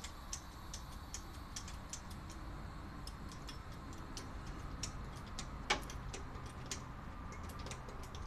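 Light metallic clicking, about three clicks a second, from a car jack being worked under the front of a 1983 Dodge van. One louder knock about halfway through.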